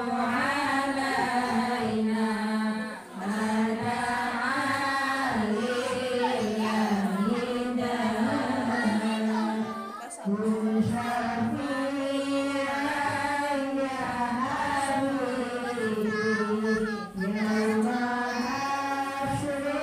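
A group of women singing an Islamic devotional chant (sholawat) together in unison, a slow, drawn-out melody. There are brief pauses for breath about three, ten and seventeen seconds in.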